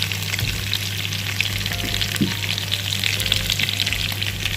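Marinated chicken pieces sizzling and crackling in an uncovered pan on a low flame, crisping now that the juices they released have cooked off.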